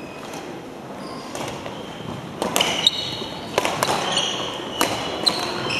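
A racket-sport rally on an indoor court. It is quiet for the first couple of seconds; then, from about two and a half seconds in, comes an irregular string of sharp hits mixed with high squeaks of shoes on the court floor, echoing in the hall.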